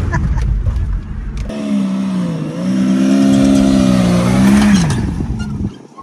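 A dense, loud rumble of a vehicle driving on sand, then from about a second and a half in a Jeep Cherokee's engine pulling hard as it climbs a sand dune. Its note dips briefly, holds steady, then drops away and fades near the end.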